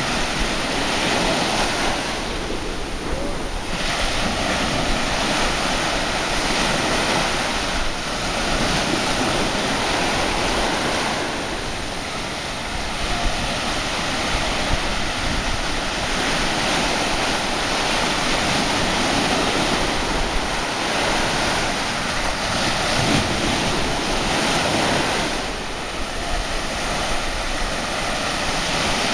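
Small sea waves breaking and washing in the shallows, a steady surf noise that eases briefly a few times, with wind buffeting the microphone.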